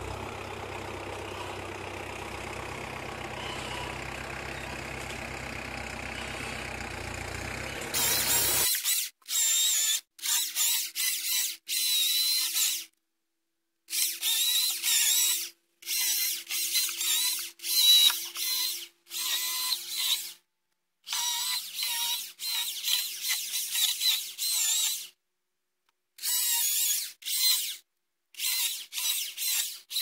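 Deutz-Fahr Agroplus 90 F tractor's diesel engine running steadily for about the first nine seconds. Then a Husqvarna 536LiXP battery chainsaw whines in short cutting bursts while delimbing a log, with sudden gaps of total silence between bursts.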